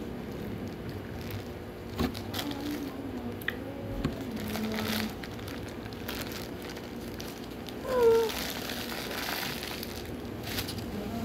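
Paper burger wrapper crinkling in the hands as the burger is held, bitten and the wrapper crumpled. About eight seconds in there is a brief pitched vocal sound, the loudest moment.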